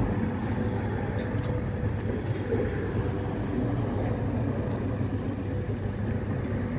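Boat motor running steadily, a low even hum with a faint haze of water and air noise over it.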